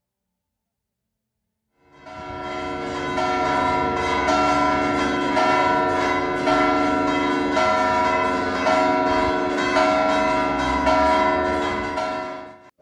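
Church bells ringing, with a new strike about once a second over the hum of the bells still sounding. They start suddenly about two seconds in and cut off just before the end.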